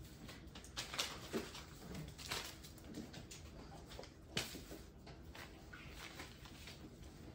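Bullmastiff puppies playing on a concrete floor: scattered light clicks and scuffles of paws and toys, the sharpest about a second in and again just past four seconds.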